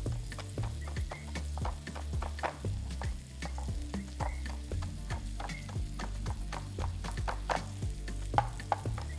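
Knife chopping fresh cilantro on a cutting board in quick, irregular taps, with chicken breast sizzling as it fries in oil and butter.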